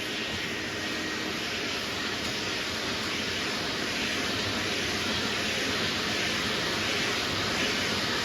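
Dry sandpaper on a sanding block rubbing back and forth over a primered panel, a steady scratchy hiss with a slight rise and fall from the strokes.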